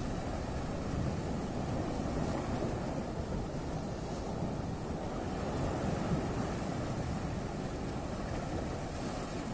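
Sea waves washing against rocks at the shoreline, with wind buffeting the microphone: a steady, low rushing wash with no separate impacts.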